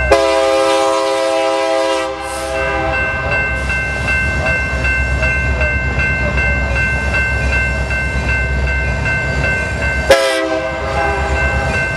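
Freight diesel locomotive air horn sounding a blast of two to three seconds, then a short blast about ten seconds later, over the low rumble of the passing BNSF diesel locomotives hauling a loaded coal train. A steady high-pitched squeal runs underneath throughout.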